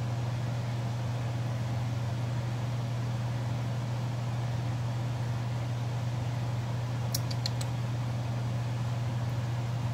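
A steady low mechanical hum, with a few faint ticks about seven seconds in.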